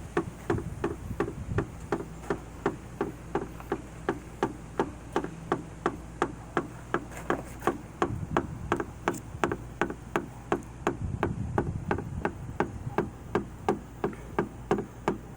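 Jeep Wrangler JK with a steady, regular knocking, about three sharp knocks a second, over a low, even hum.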